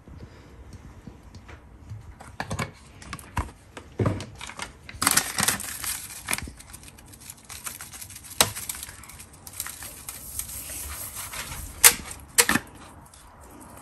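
Crinkling and rustling of a paper seasoning packet being handled and shaken out over a raw chicken, with scattered sharp clicks and a denser rustle about five seconds in.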